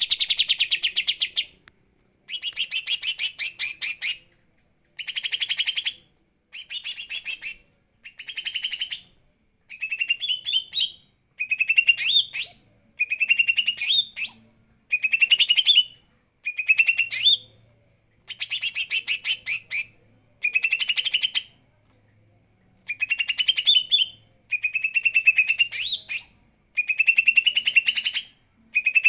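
Cucak ijo (green leafbird) singing in about fifteen short bursts of rapid, high chattering song, each a second or two long with brief pauses between, many ending in an upward sweep. This is the lively 'gacor' singing that the keeper credits to a night bath.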